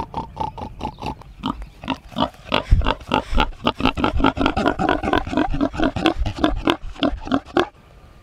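Pig grunting close up, a quick run of short repeated grunts, several a second, that stops near the end.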